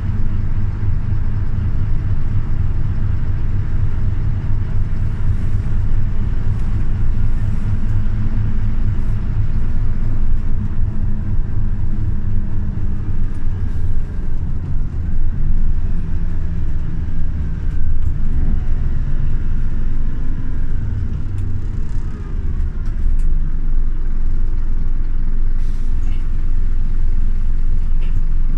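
Scania OmniLink city bus driving: a steady, loud low rumble from its engine and running gear, with a whine that shifts up and down in pitch through the middle as the bus changes speed. A few light rattles or clicks come near the end.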